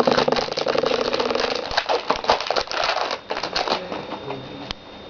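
Foil Pokémon booster pack crinkling in the hands as it is opened: a dense run of rapid crackling that dies away about four seconds in, followed by a single sharp click.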